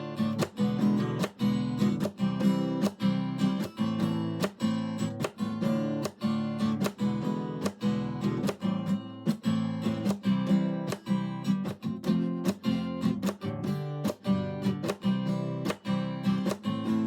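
Acoustic guitar music, steadily strummed with a regular rhythm.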